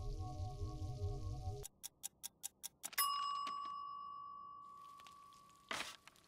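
Background music cuts off, then a kitchen timer ticks about six times and rings a single loud ding that fades away slowly: the oven-baked eggs are done. Near the end comes a brief scrape as the baking tray is set down on the counter.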